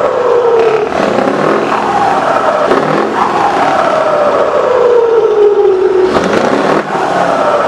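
Scania R620's V8 diesel revved hard through its tall vertical exhaust stacks, loud, about three times: each time the engine note jumps up quickly, then falls away slowly as the revs drop.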